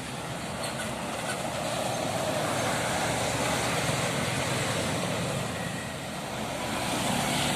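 Tour bus passing on the road, its engine and tyre noise swelling past and easing off near six seconds, then rising again as the next vehicle comes up.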